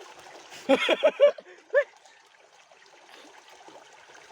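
Stream water flowing and trickling steadily, with a few short, high-pitched vocal calls about a second in.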